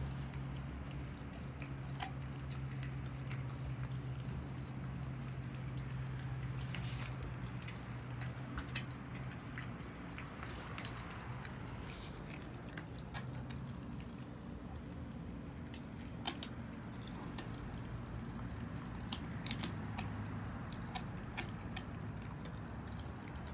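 German Shepherd puppy chewing raw chicken, with irregular wet crunches and clicks of teeth on meat and bone. A steady low hum runs underneath for about the first half.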